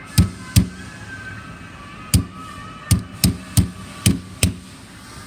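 A hammer tapping a pin down into a bag clamp: eight sharp knocks, a pair about a second apart near the start, then six quicker ones from about two seconds in.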